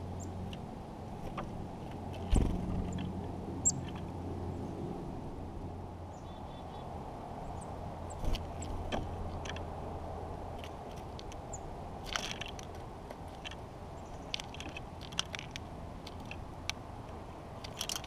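Small songbirds feeding at a wooden log seed feeder: scattered taps and clicks as they peck through the seed and land on the wood, with a sharp knock about two seconds in and a few faint high chirps. A low steady hum sits underneath for the first half.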